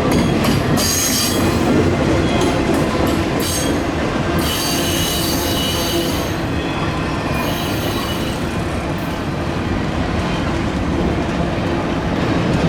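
Freight train cars rolling past with a steady rail rumble, steel wheels squealing high in on-and-off bursts over the first half or so.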